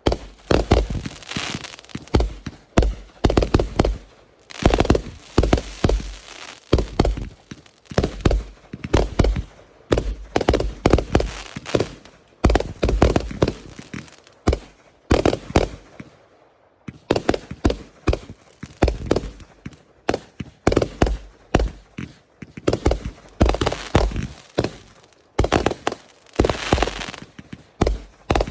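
Fireworks going off in rapid volleys: clusters of sharp bangs and crackles one after another, with a brief lull about sixteen seconds in.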